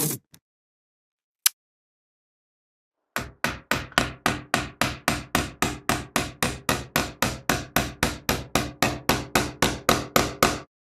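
A hammer driving a nail with rapid, even blows, about four strikes a second for some seven seconds, after a single light tap.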